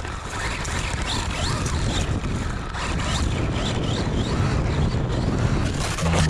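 Arrma Big Rock V3 RC monster truck driving hard, heard from a camera on its body: the electric motor whines up and down in pitch again and again as the throttle comes on and off, over a rough rush of drivetrain and tyre noise.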